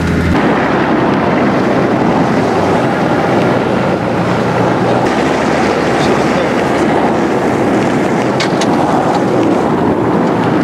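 Off-road vehicle driving on a snowy forest track, heard from outside the open side window: engine and tyre noise under a steady, loud rush of wind on the microphone. It starts as a steady engine hum from inside the cab and switches to the rushing noise a fraction of a second in.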